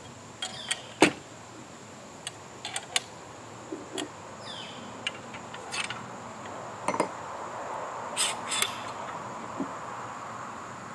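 Scattered sharp clicks and clanks of steel target-stand legs and bolts being handled and tightened during assembly. A passing vehicle's hum rises in the background in the second half, over a steady insect buzz.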